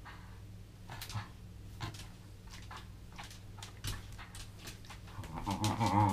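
Welsh terrier growling while it tugs on a rope toy; a low growl starts near the end and becomes the loudest sound. Scattered light clicks and knocks come before it.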